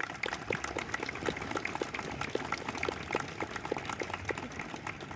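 Small audience clapping, many separate claps heard individually, one clapper close by keeping a steady beat of about three claps a second.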